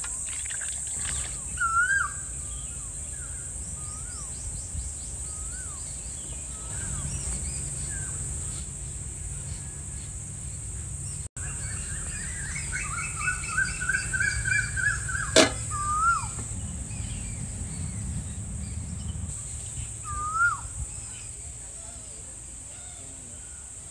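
Birds calling: scattered short chirps, and a longer run of calls around the middle, over a steady high hiss. A single sharp click about fifteen seconds in.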